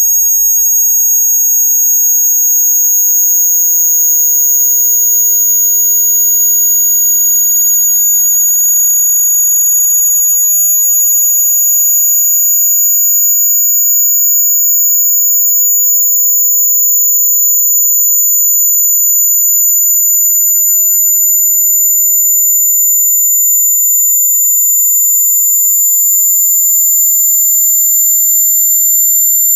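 Speaker test frequency sweep: a loud, steady, high-pitched pure tone slowly rising in pitch, with a second, very high tone above it slowly falling.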